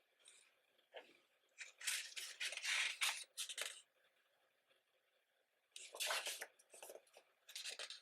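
Paper rustling as the pages of a thick photobook are turned and handled, in two spells of short, crisp rustles with a quiet pause between.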